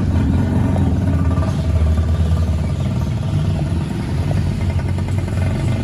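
Truck engine running steadily with a deep, continuous rumble.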